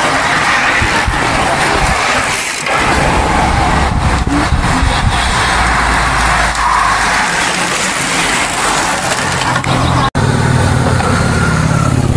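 A motor vehicle's engine runs under a steady loud rush of noise. After a sudden break about ten seconds in, a lower, evenly pitched engine drone takes over.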